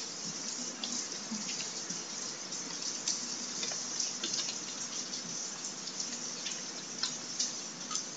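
Computer keyboard typing: short, irregular key clicks over a steady hiss.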